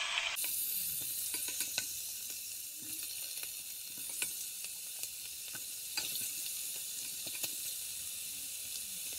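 Chicken pieces sizzling steadily as they sear skin side down in hot oil with garlic and ginger, rendering the fat from the skin, with occasional sharp clicks of a wooden spoon against the pot.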